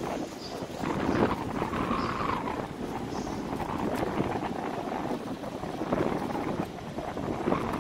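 Wind buffeting the microphone, a gusting rush that swells and falls.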